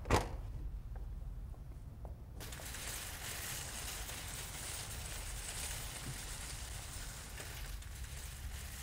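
Steady low rumble and hiss inside a parked car's cabin. A single sharp knock comes at the very start, and about two and a half seconds in a steady hiss switches on abruptly and holds over the rumble.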